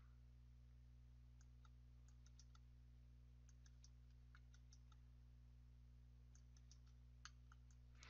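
Near silence: faint computer mouse clicks, scattered in small clusters, over a low steady electrical hum.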